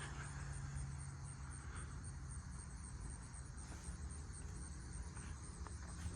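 Crickets chirping in a steady, high, evenly pulsed chorus, over a faint low rumble.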